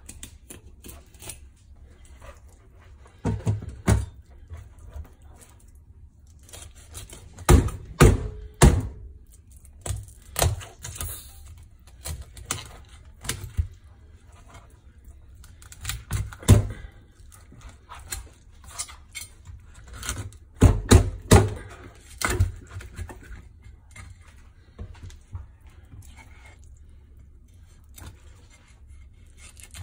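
Kitchen knife cutting into a whole sea mullet on a wooden cutting board: irregular knocks and clicks of the blade and fish against the board, in clusters a few seconds apart, the loudest about eight seconds in and again around twenty-one seconds.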